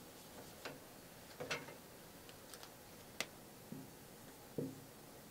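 Faint scattered taps and ticks of a dry-erase marker on a whiteboard, with one sharper click about three seconds in, over quiet room tone.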